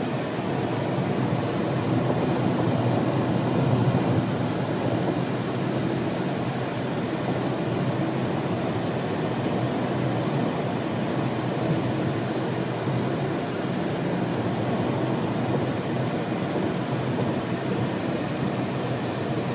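Strong sandstorm wind blowing steadily, swelling slightly a few seconds in.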